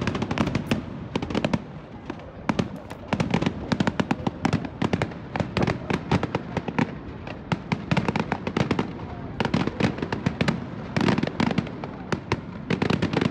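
Aerial fireworks shells bursting overhead: runs of many sharp bangs and cracks in quick succession, with short lulls between runs every second or two.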